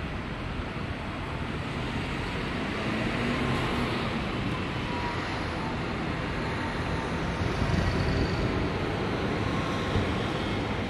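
Outdoor city ambience: a steady hum of distant traffic that swells twice as vehicles pass.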